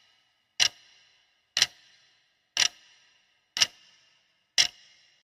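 Sharp ticks, one a second, each with a short ringing tail, five in all.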